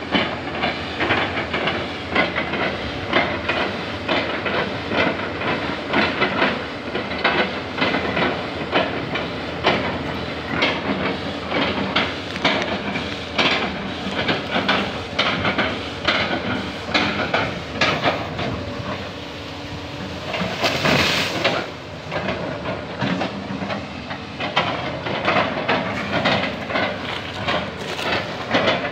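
Doosan hydraulic excavator working: its diesel engine running under load while the bucket chops old oil palm trunks, a dense run of irregular cracks, knocks and crunches. The noise eases a little about two-thirds of the way in, with a brief hiss there.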